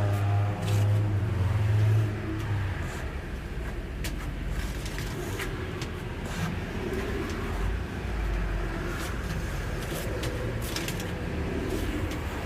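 A motor running with a steady hum that stops about two seconds in, leaving a low rumble with scattered clicks.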